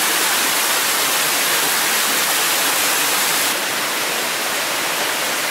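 Small waterfall spilling over a rocky ledge into a pool: a steady, loud rush of falling water, dropping a little in level about three and a half seconds in.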